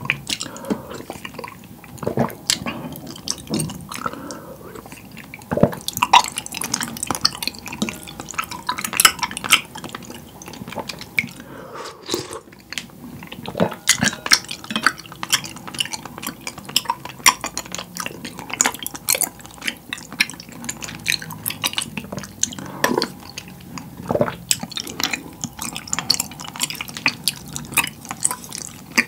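Close-miked wet eating sounds: a wooden spoon clicking and scraping against a glass bowl of milk tea, with slurping and soft chewing of chewy tapioca pearls in many short, irregular wet clicks and smacks.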